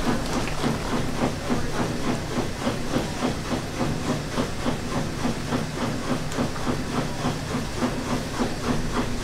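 A large pot of water boiling hard with Korean blood sausages (sundae) in it, hissing and steaming. Under it runs a steady low hum with a fast, regular pulsing.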